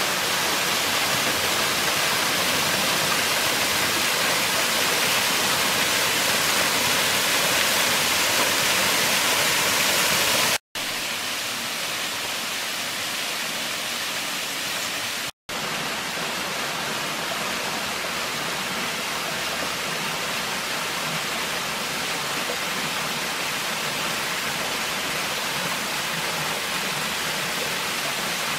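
Waterfall rushing steadily. The sound drops out for an instant about ten seconds in and again some five seconds later, and is a little quieter after the first break.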